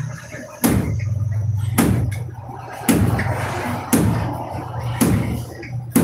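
A nail being knocked into a wall to hang a mosquito net, with sharp blows about a second apart over a steady low hum.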